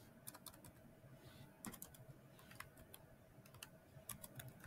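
Faint keystrokes on a computer keyboard: short, irregular clicks of someone typing a word.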